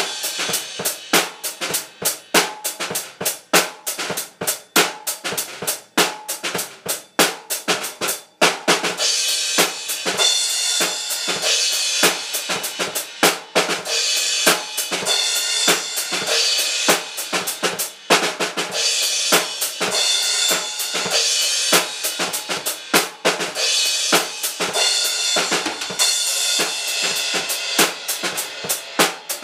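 Acoustic drum kit played continuously, a steady run of drum hits, with cymbals ringing over the beat in stretches from about eight seconds in.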